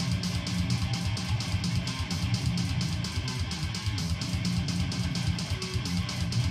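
ESP LTD V-shaped electric guitar playing a fast, steadily picked metal riff on low notes, each stroke evenly spaced.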